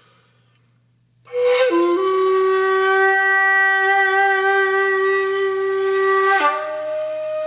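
Background music: a solo flute comes in about a second in with a breathy attack and a quick downward bend, holds one long steady note, then moves to a higher note near the end.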